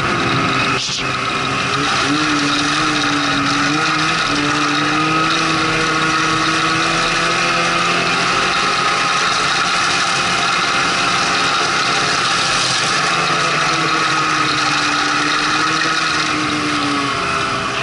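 Snowmobile engine running steadily under way, its pitch dipping and rising slightly a few times, over a constant rushing hiss from the ride.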